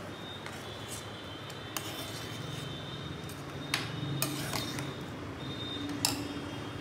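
A metal spoon stirring thick rice pudding in an aluminium pot, scraping through it and clinking against the pot a few times, over a steady background hiss.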